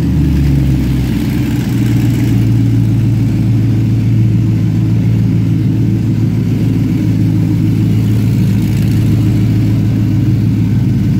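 Maserati GranTurismo V8 idling on a cold start with its catalytic converters removed, the exhaust open straight from the manifolds, very loud. The idle drops in pitch in the first half second, then holds steady. Heard from inside the cabin.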